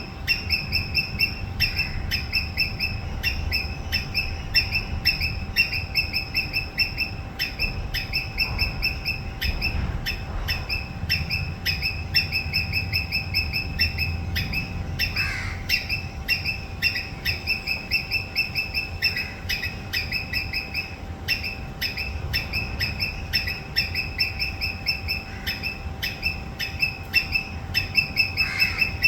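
Squirrel giving its alarm chatter: fast runs of short, high, sharp chirps, several a second, repeated in bouts over and over. This is the call squirrels use to warn others of danger.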